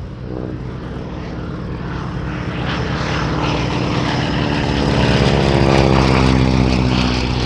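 Radial-engined propeller aircraft flying past. The engine note grows louder to a peak about five seconds in, and its pitch falls as it passes.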